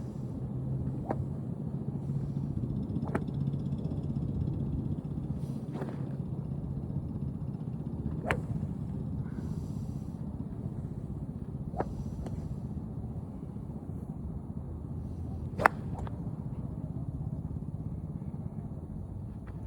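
Golf clubs striking balls at a driving range: sharp, isolated clicks a few seconds apart, one much louder than the rest about three-quarters of the way through, over a steady low rumble.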